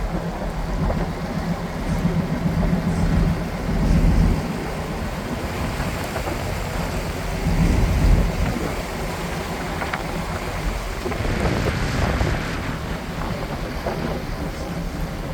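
Cruise boat under way: a steady low rumble with a noisy wash over it, swelling and easing in gusts of wind on the microphone.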